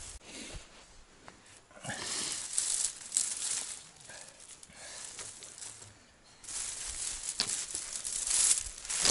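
Rustling and crackling of cut branches and brush being handled, in two long stretches with a few sharp snaps among them.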